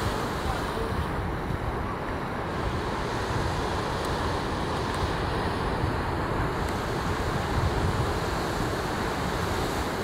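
Steady wash of ocean surf on a beach, with wind rumbling on the microphone.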